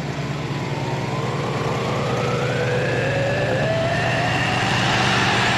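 Car engine running with a steady low rumble and a whine that rises slowly in pitch over a few seconds, getting gradually louder as the engine is revved.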